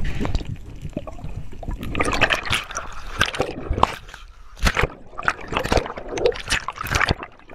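Water sloshing, splashing and bubbling close to the camera, in irregular bursts, as a diver's fins churn the water near the surface and send up clouds of bubbles.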